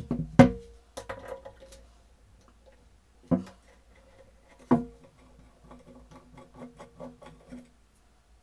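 Metal knocks and clinks from a screwdriver working a screw out of an old hand drill's metal gear housing. Sharp, ringing knocks come at the start, about half a second in, and twice more mid-way, and are followed near the end by a run of quick clicks as the screw is turned out.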